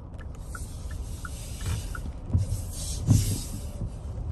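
Inside a car moving slowly over wet pavement: a low engine and road rumble with swells of tyre hiss. Soft ticking about three times a second runs underneath, typical of a turn-signal indicator. Two dull thumps come near the end.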